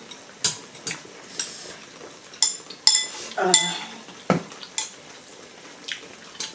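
Chopsticks and spoons clinking and tapping against bowls and the hotpot while eating, scattered light clicks with a cluster of louder, ringing metal clinks about two and a half to three and a half seconds in.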